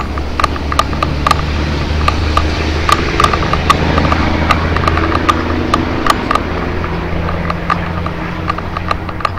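Riding noise of a KBO Breeze e-bike: a steady low wind rumble with an irregular clicking rattle, about two or three sharp clicks a second.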